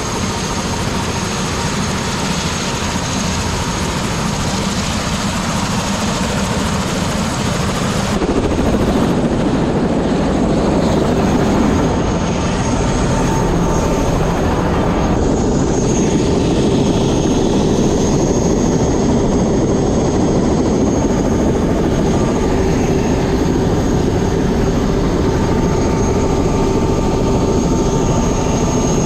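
Helicopter running loudly and steadily, with a thin whine over the rotor and engine noise. About eight seconds in it grows louder and fuller.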